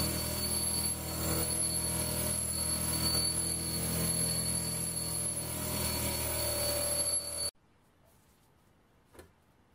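Bench grinder running with a wire wheel scrubbing rust off a steel mortar tube: a steady motor hum with a high whine and scratchy brushing. It cuts off abruptly about seven and a half seconds in, leaving a quiet room with a faint knock.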